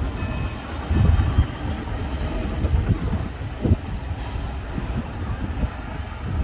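Heavy diesel earthmoving machinery running hard: a steady low rumble broken by irregular knocks and clanks, the loudest about a second in and again near 3.7 s.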